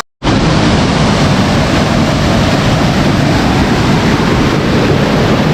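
Loud steady rush of a cascading waterfall, an even roar of falling water that cuts in after a brief gap at the very start.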